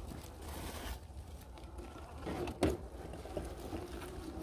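Radio-controlled scale crawler (Element RC Enduro with a Hobbywing Fusion 1800kv brushless motor) creeping over leaf litter: a faint wavering motor whine with rustling, and one sharp knock about two and a half seconds in.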